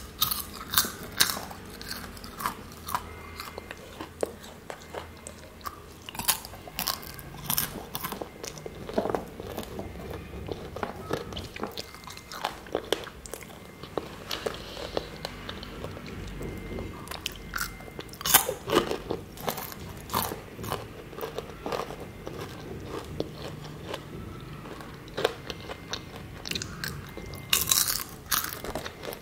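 Someone crunching and chewing matcha-coated popcorn: sharp, crisp crunches in clusters every few seconds, with quieter chewing between.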